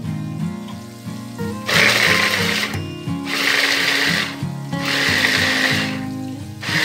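Small electric mini chopper pulsed in four short bursts of about a second each, its blades whirring through chilies, shallots and tomato; the pulses are kept brief for a coarse chop. Background music plays underneath.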